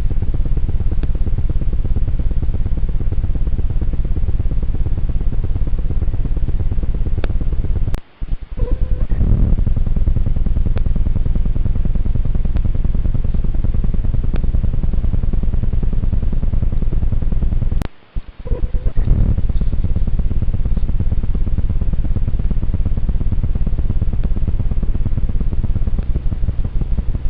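Steady low rumble with a fluttering texture and light hiss, the noisy sound of a trail camera's recording. It cuts out briefly about 8 seconds in and again about 18 seconds in, where one camera clip ends and the next begins.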